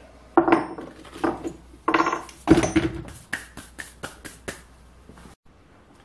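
A drill and its masonry bit being handled and set down on a wooden workbench: a few sharp metallic clinks and knocks, then a quick run of about eight light ticks.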